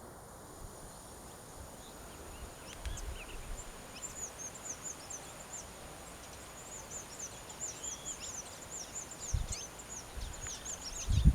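Canary singing: a rapid run of short, high chirps and trills from about four seconds in, over a faint steady high-pitched tone.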